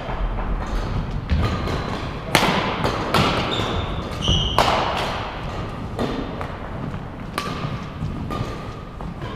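Irregular thumps and sharp knocks, about a dozen, with ringing after some of them and a few brief high squeaks.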